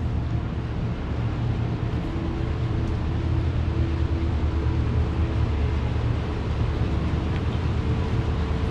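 Steady low mechanical drone with a deep hum and a few faint held tones above it, unchanging throughout.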